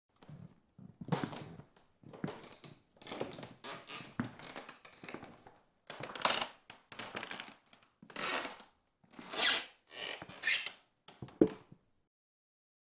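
A run of creaking noises: about a dozen irregular creaks and scrapes of uneven length over roughly eleven seconds, growing louder in the second half.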